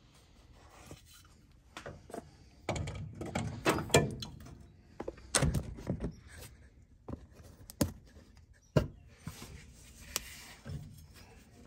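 A replacement shock absorber being worked up through a 1992 Ford F-150's front coil spring toward its upper mount: irregular knocks, clunks and scrapes of the shock body against the spring and suspension metal, with the sharpest knocks in the middle stretch and one near the end.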